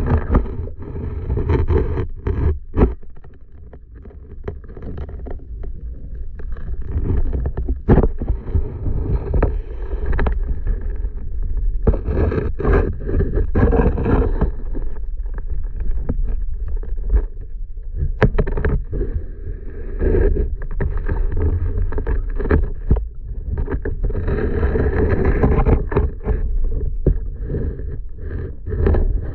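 Muffled underwater sound picked up by a submerged GoPro in its waterproof housing: a dull, low rumble of water around the camera, with frequent knocks and clicks as the housing bumps and scrapes. There is a quieter spell about four seconds in.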